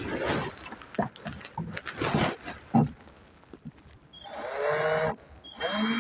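Electric drill with a 2.5 mm bit drilling into the aluminium steering-rack housing: irregular grinding rasps as the bit bites, then from about four seconds in two short runs of the drill's motor whine.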